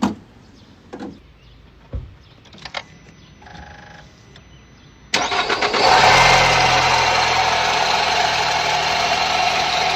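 A few light knocks and clicks from handling around the car. About halfway in, a loud car engine under an open hood cuts in abruptly and keeps running with a squealing noise. The owner calls it a severe squeak and suspects the belt.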